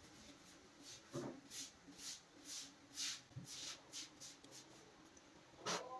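Faint, irregular scraping and rubbing from hands handling and refitting a desktop CPU cooling fan's cover, with a soft knock about a second in and a sharper knock near the end.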